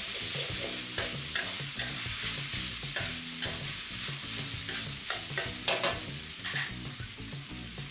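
Shredded cabbage, glass noodles and minced pork sizzling in a hot wok as a metal spatula stirs and tosses them, with scrapes and clinks of the spatula against the wok every second or so. The cabbage is being stir-fried until it wilts.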